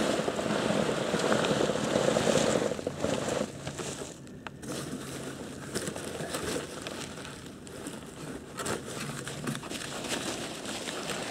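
Hand rummaging through styrofoam packing peanuts, which rustle and rub together, with plastic wrapping crinkling as the box is handled. Loudest for the first few seconds, then quieter rustling with small clicks.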